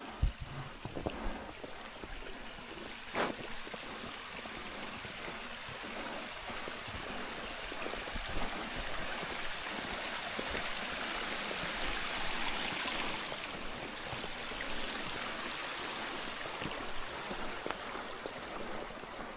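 Mountain water rushing steadily, with a few short knocks in the first three seconds.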